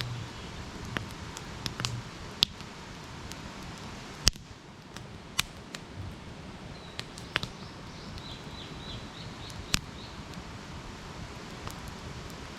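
Campfire crackling over a steady hiss, with irregular sharp pops from the burning wood, the loudest about four seconds in. Faint short high chirps come in a run around seven to nine seconds.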